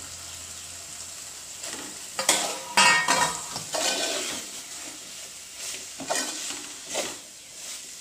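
Steel spoon stirring and scraping tender cashew kernels through onion-tomato masala frying in oil in an aluminium pot, with a steady sizzle underneath. The scrapes come in uneven strokes, the loudest about two to three seconds in.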